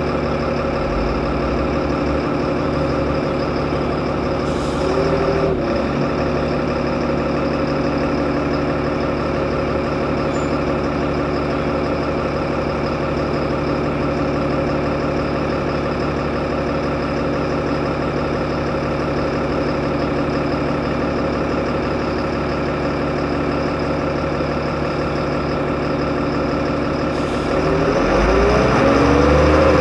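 Solaris Urbino 15 city bus engine idling steadily, heard on board, with a short hiss about four seconds in. Near the end another short hiss comes, then the engine revs up with rising pitch as the bus pulls away.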